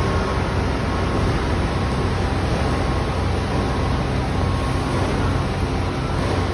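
Diesel engines of a truck-mounted concrete boom pump and a concrete mixer truck running, a steady loud rumble.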